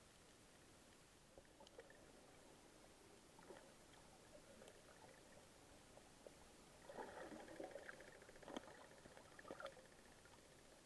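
Near silence under water: a faint hiss with scattered small clicks, and a denser patch of crackling and rustling about seven seconds in that lasts a couple of seconds.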